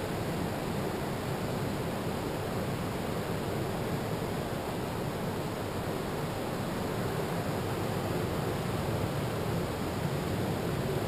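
Ocean surf breaking on a sandy beach: a steady, even rush of noise.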